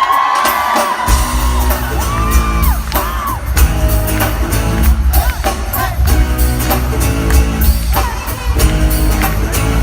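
Live pop song with a male vocal group singing long held notes over the band; the bass and beat drop out briefly and come back in about a second in.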